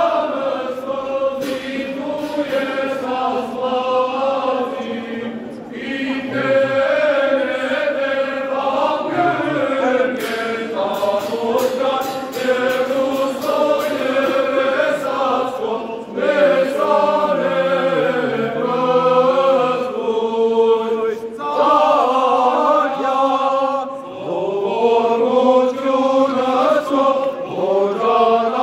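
A group of voices chanting an Armenian church hymn in unison, with long held notes that slide slowly up and down in pitch and short pauses for breath a few times.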